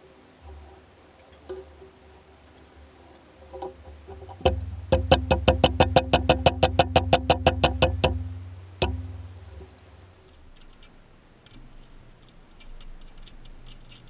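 Small hammer tapping a steel bridge-stud anchor down into a wooden guitar body: a quick, even run of light taps, about seven a second, for some three and a half seconds, then one more single blow.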